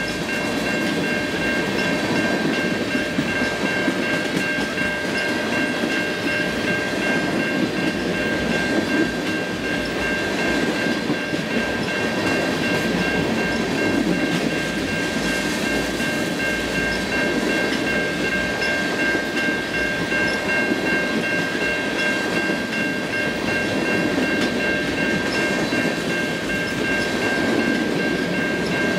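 Freight train of tank cars rolling past: a steady rumble of steel wheels on the rails, with a steady high-pitched ringing tone over it.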